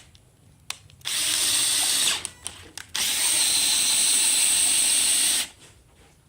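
Power drill boring a bolt hole through pine timber, running in two spells: about a second long near the start, then about two and a half seconds from three seconds in, stopping well before the end.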